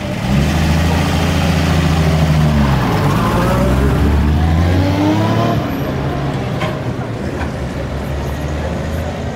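Vintage car's engine accelerating hard, with a drop in pitch like a gear change about three seconds in, then rising revs again. It eases off to a lower, quieter running sound at about five and a half seconds.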